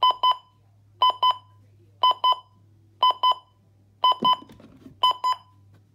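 Midland WR120 weather radio's alarm buzzer going off: a pair of short high beeps, repeated about once a second.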